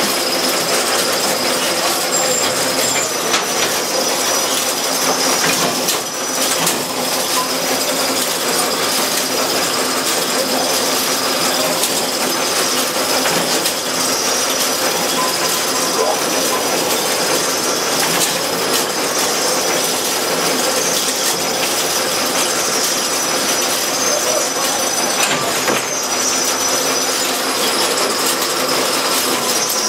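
Underground mine hoist machinery running steadily: a continuous loud mechanical rattle and hum with a thin high metallic whine over it.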